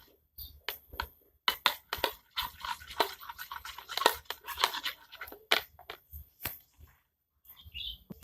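A stick stirring a glue-and-water slime mixture in a container, making irregular clicks and scrapes against its sides, then a short high squeak near the end.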